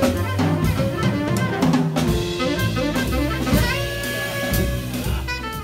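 Live jazz combo playing: saxophone leading over a stepping bass line, electric guitar and a drum kit with cymbals. The saxophone holds longer notes in the second half.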